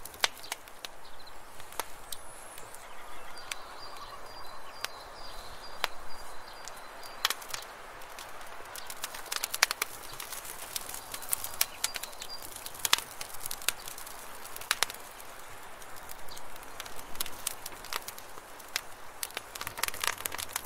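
Wood fire crackling in a metal fire pit, with many irregular sharp pops and snaps over a steady hiss.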